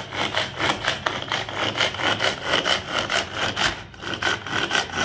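Manual pull-cord hand blender being worked: the string is pulled out and let wind back again and again, and the three blades whir and churn the milk in a regular rhythm of several strokes a second.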